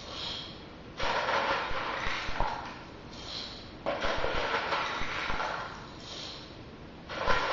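Dry cat kibble scooped with a small plastic cup and poured into a styrene pipe coupling onto a closed acrylic disc, the pellets rattling in three rushes about three seconds apart.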